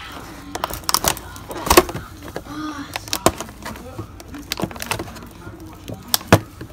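Clear plastic clamshell container crackling and clicking as a hand grips and presses it: irregular sharp snaps, a couple of them louder.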